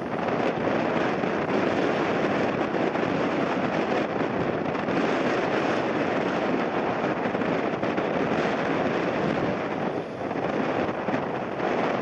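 Jet airliner's engines heard on landing in a gale, a steady noise mixed with strong wind gusting on the microphone.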